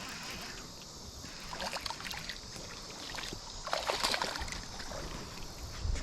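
Short bouts of water splashing and rattling as a small hooked bass is brought in at the surface, over a steady chorus of insects.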